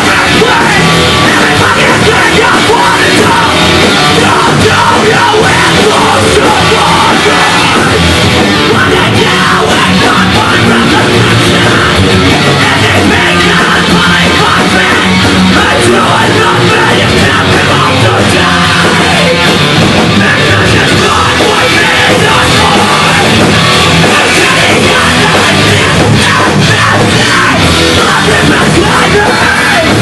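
Post-hardcore rock band playing live, loud and without a break: distorted electric guitars, bass guitar and drum kit.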